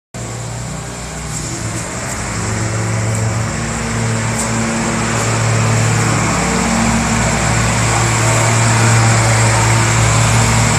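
Steady low mechanical hum from a running motor or machine, growing a little louder, with a faint steady high whine over it.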